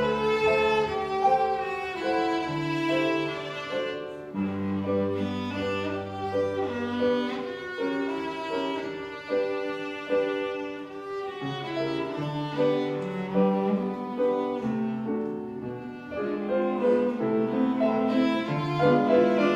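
Cello playing a slow, singing melody with held notes, accompanied by piano.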